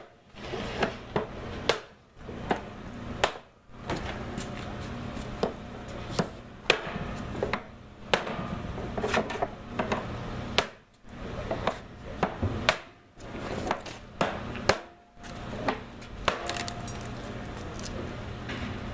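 A hammer striking a hoop driver set against the steel hoop of an oak wine barrel, working the hoop along: sharp metal-on-wood knocks at roughly one a second, with short pauses between runs.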